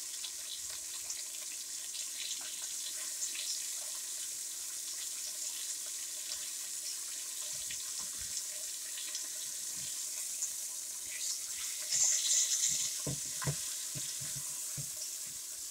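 Flour-dredged chicken breast fillets searing in olive oil in a deep pan: a steady sizzle with small crackles. About twelve seconds in the sizzle grows louder for a moment, with a few knocks of a utensil against the pan as the pieces are turned.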